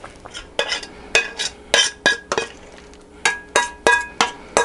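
A metal spoon knocking and scraping against a steel saucepan and mesh strainer as thick rose hip pulp is spooned out to be strained. It makes a string of about a dozen sharp metallic clinks, each ringing briefly, with a short pause about halfway through.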